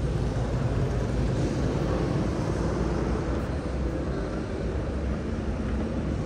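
Steady low rumble of motorcycle engines running, with no single bike standing out.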